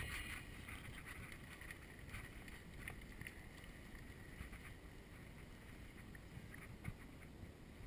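Faint outdoor background noise: a low rumble with a few soft clicks and knocks.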